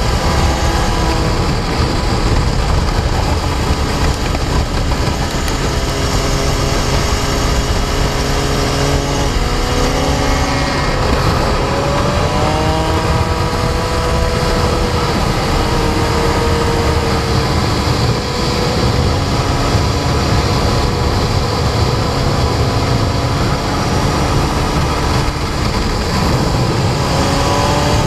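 Sport motorcycle engine running at speed on a race track, its pitch climbing and dropping with throttle and gear changes, under heavy wind rush on the bike-mounted microphone.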